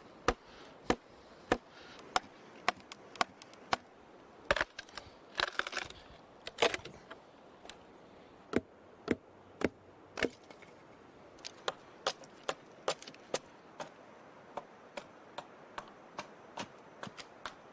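Wooden wedges being driven into a dead cedar log with a wooden club to split it lengthwise: a string of sharp knocks, about one a second, with a few quick clusters.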